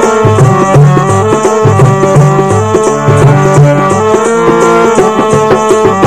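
Instrumental passage of a devotional hymn: tabla drumming under a sustained, held melody line.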